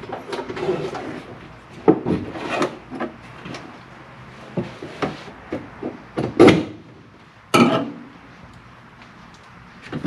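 A plastic battery relocation box being set and shifted in a car's bare metal trunk: irregular knocks, clunks and scraping, with the loudest clunks about six and a half and seven and a half seconds in.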